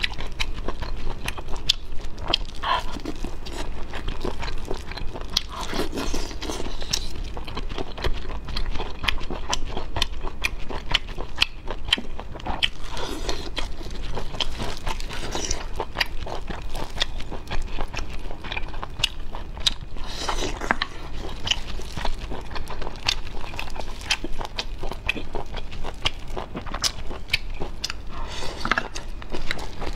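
Close-up eating of braised river snails: the meat is sucked and slurped from the shells now and then, amid a steady run of small shell clicks and chewing.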